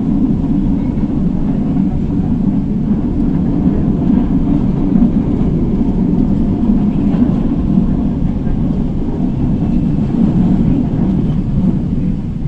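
Steady low rumble of an LRT Line 1 light-rail car running along the line between stations, heard from inside the car.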